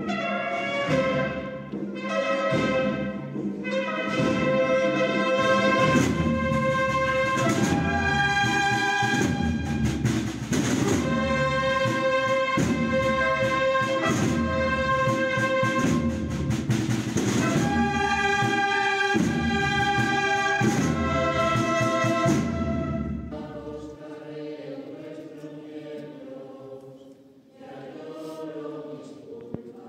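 Brass-and-drum procession band of trumpets and drums playing a slow Holy Week processional march, with held brass chords over drum beats. The band stops about 23 seconds in and quieter voices singing follow.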